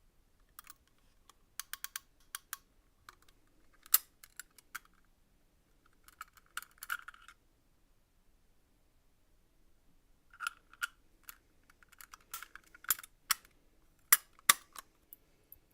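Irregular light clicks and taps of small hard objects being handled and set down, in scattered clusters with short quiet gaps.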